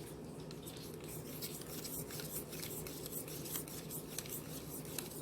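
A utensil stirring a sauce of ketchup, hot sauce and garlic chili sauce in a bowl: quick, irregular scraping and clicking against the bowl.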